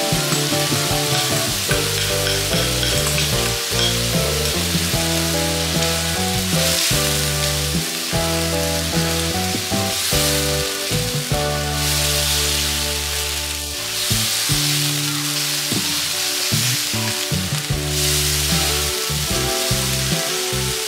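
Squid pieces sizzling and frying in a hot nonstick wok as sauce is poured in and the food is stirred with a wooden spatula, the sizzle swelling now and then. Background music plays underneath.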